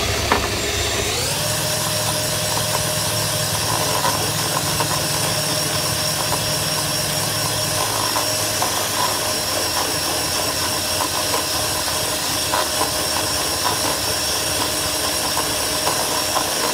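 Electric hand mixer whipping heavy cream and sugar. Its motor whine climbs in pitch about a second in as it speeds up, then runs steadily, with light ticks now and then.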